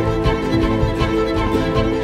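Music with sustained held chords under a quick, busy run of notes.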